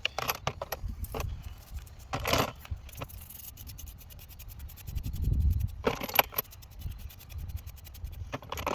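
Small metal parts, spark plugs, clinking and scraping against each other as they are handled, with a couple of sharper clinks.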